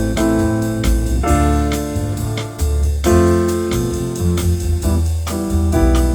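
Background music: piano or electric keyboard playing sustained chords over a steady bass line, changing chords every second or so.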